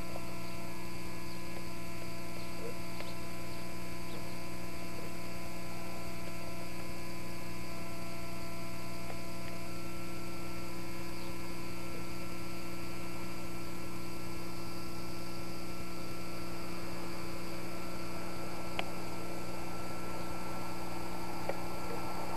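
Steady electrical hum with several fixed tones at an even level, with two faint clicks near the end.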